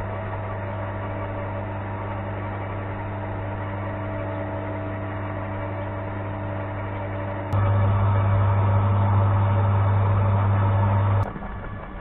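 Electric garden shredder running with a steady low hum; it gets louder about seven and a half seconds in and cuts off abruptly near the end.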